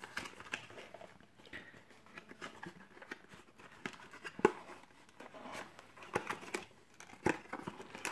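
Thin cardboard trading-card box being opened by hand: flaps flexing and scraping, with scattered light clicks and rustles of card and foil packs. A sharper tap comes about four and a half seconds in, and another about seven seconds in.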